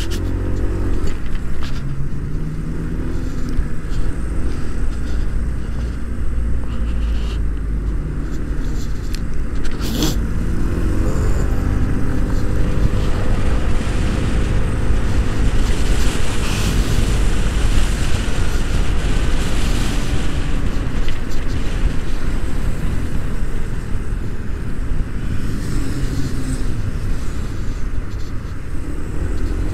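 Riding on a two-wheeler in traffic: constant wind rumble on the rider's microphone with road noise. Engine notes rise and fall a few times, near the start, about ten seconds in, and near the end.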